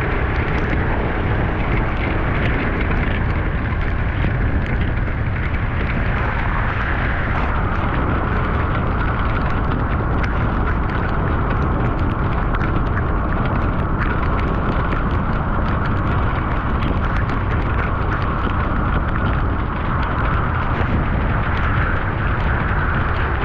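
Vehicle driving along a flooded street: a steady low rumble with hiss over it, a brighter hiss setting in about six seconds in, and scattered small sharp ticks throughout.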